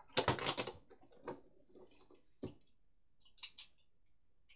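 Plastic clicks and light rattling as a Beyblade and its launcher are handled: a dense run of clicks at the start, then a few separate clicks, the sharpest about two and a half seconds in.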